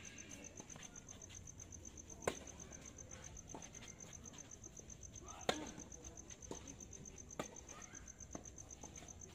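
Sharp pops of a tennis ball struck by rackets during a rally, a few in all, the two loudest about three seconds apart. A steady high chirring of crickets runs underneath.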